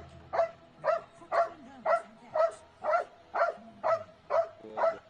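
A dog barking over and over in short, evenly spaced barks, about two a second, each much like the last.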